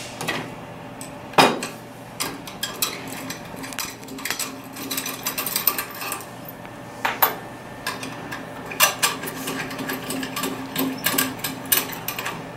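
Allen key clicking and scraping against the metal screws of a Braillo magnet rack as they are loosened, in a run of irregular clicks and taps with one louder knock about a second and a half in.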